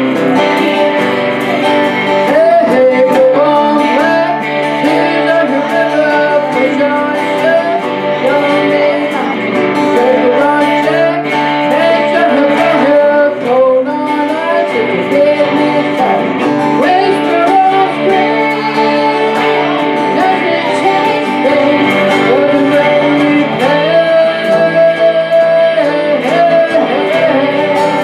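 Live band playing a song: an electric lead guitar with bending notes over a strummed acoustic rhythm guitar, with a woman singing.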